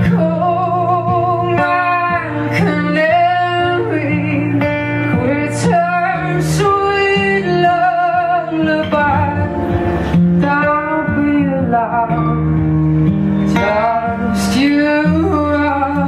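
Live band music: a woman singing a slow melody, wavering on held notes, over strummed acoustic guitar.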